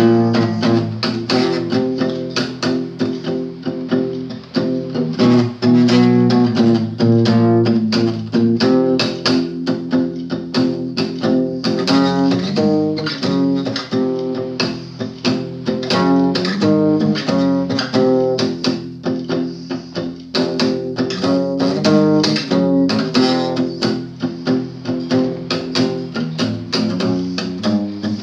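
Acoustic guitar played with rapid, driving strumming and picking of chords, many quick string strokes in a row.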